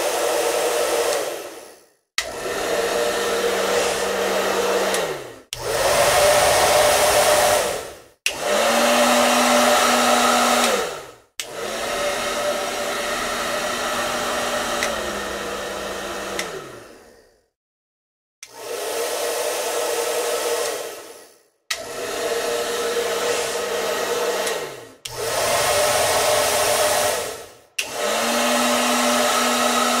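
Hair dryer switched on and off about nine times. Each run starts abruptly, blows a steady rushing whine for two to six seconds, then dies away as the motor winds down, with short silent gaps between runs.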